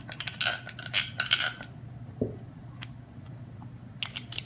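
Steel gear parts of a Sturmey-Archer S80 internal-gear hub clinking as the 81-tooth gear ring is set onto the gear stack. There is a cluster of clinks in the first second and a half, then a few sharp clicks near the end.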